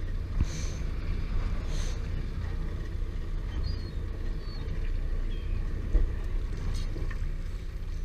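Small fishing boat's motor running with a steady low rumble, a few faint short high chirps above it.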